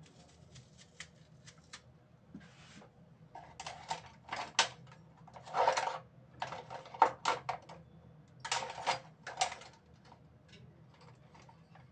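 Kitchen utensils and other items being handled and shifted about during a search for a knife: irregular clicks, clatter and rustling in bursts, loudest in the middle. A low steady hum runs underneath.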